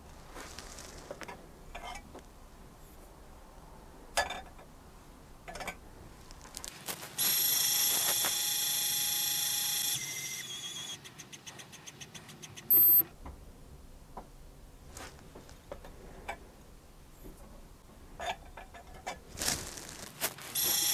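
Lyman Gen6 electronic powder dispenser: the brass powder pan clinks as it is handled on the scale, then the dispenser motor runs with a steady high whine for about three seconds, changes to a rapid even pulsing as it trickles the last of the charge, and a short beep signals the charge is complete. Near the end the motor starts its steady whine again for the next charge.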